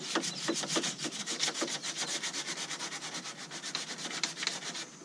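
180-grit sandpaper worked by hand over the painted fiberglass of a tractor's inner fender, scuffing the surface in rapid, even back-and-forth strokes that stop just before the end. It is the scuffing done to give fiberglass resin a rough surface to bond to.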